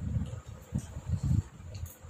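A person chewing food close to the microphone: low, repeated mouth sounds a couple of times a second, with a few faint clicks.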